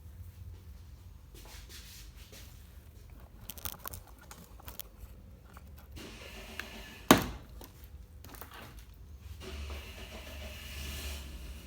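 Handling noises from work on a scooter's air filter: scattered light clicks and scrapes, then one loud sharp knock about seven seconds in, over a low steady hum.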